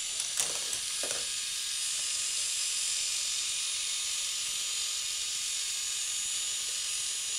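K'nex ball machine mechanism running with a steady high whirring hiss, with a couple of clicks in the first second.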